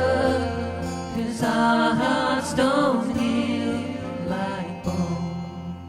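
Background song: a singer's voice over sustained instrumental chords, fading down near the end.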